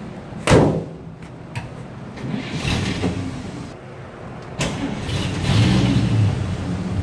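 A truck door shuts with a bang about half a second in. Then the 1950 Chevrolet 3100 truck's 216 inline-six is started, just after its oil and filter change. From about four and a half seconds in it runs with its speed rising and falling.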